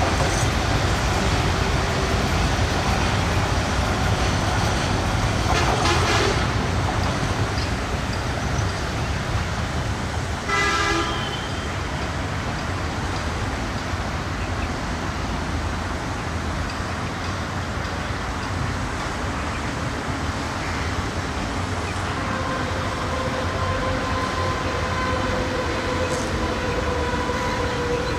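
Container freight train's wagons rumbling steadily over the rails as the train runs away, with a short horn blast about ten seconds in. A long, steady tone holds through the last six seconds.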